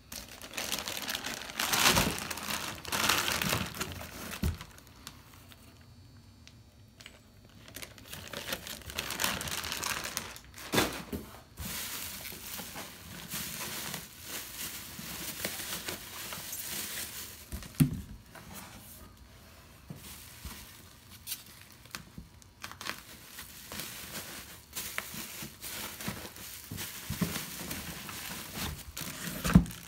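Bubble wrap and plastic packing crinkling in irregular bursts as it is handled and pulled off parts in a box, with a few sharp knocks.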